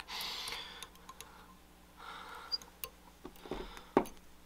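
Faint rustling of fly-tying thread being wrapped from a bobbin around a hook shank in a vise, with scattered light clicks and one sharper click near the end.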